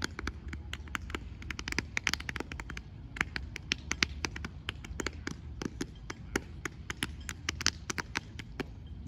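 Unarmed drill team's sharp hand slaps and foot stomps: many quick, irregular strikes, several a second, some in rapid clusters.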